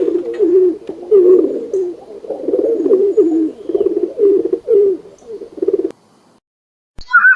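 Pigeons cooing over and over in low, wavering phrases that stop about six seconds in. A brief, higher-pitched call follows near the end.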